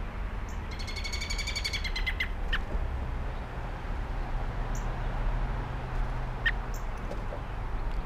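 A songbird gives a rapid, buzzy chattering trill lasting about a second and a half, followed by two short downward-slurred call notes. Faint high chips sound in between, over a low steady background rumble.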